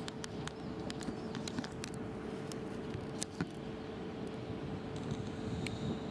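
Distant jet airliners heard as a steady rumble, with wind noise on the microphone, a steady hum and scattered sharp clicks.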